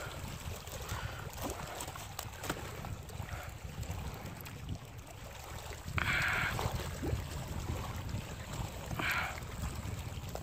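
Wind rumbling on the microphone over moving water, with gurgling and trickling and short splashes; the loudest splash comes suddenly about six seconds in, and another just after nine seconds.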